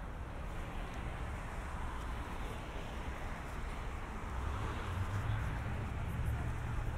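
City street traffic: a steady wash of passing cars and tyre noise, with a deeper vehicle rumble growing louder about four and a half seconds in.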